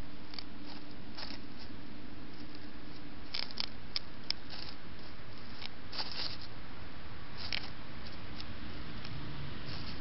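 Faint, irregular small clicks and rustles of a wood mouse (Apodemus) foraging in dry leaf litter by a lump of food, over a steady background hiss.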